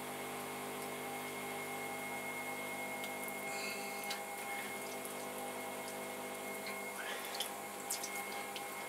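Electric potter's wheel motor humming steadily with a thin high whine, while slurry-wet hands cone the clay hump up. The wet hands make squelches and drips, mostly a few seconds in and again near the end.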